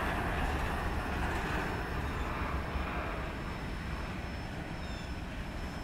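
Covered hopper cars of a freight train rolling by on the rails, a steady rumble that slowly fades as the last car moves away.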